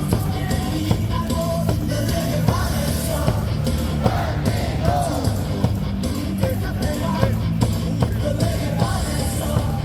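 Loud amplified stadium cheer music with a steady, heavy beat, and voices singing and yelling along.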